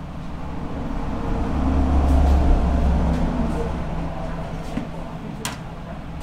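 A heavy road vehicle passing by: a low engine rumble swells to its loudest about two seconds in, then fades away. A sharp click comes near the end.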